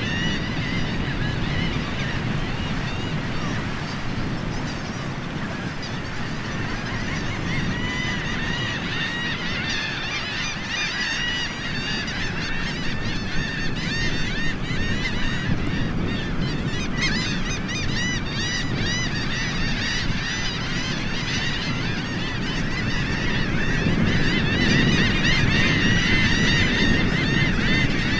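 A large mixed flock of shorebirds, ruddy turnstones and red knots, calling without pause: a dense chatter of many overlapping short calls over a steady low rumble, growing a little louder near the end.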